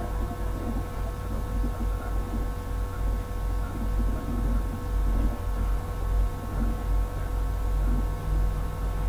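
Steady electrical hum and buzz, several fixed tones over a low rumble that wavers in level: mains hum picked up by the recording setup.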